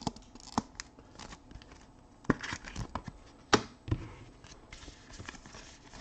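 Trading cards handled by hand: light sliding and rustling of cards with several sharp clicks and taps as cards are set down and picked up, the loudest about two and a half and three and a half seconds in.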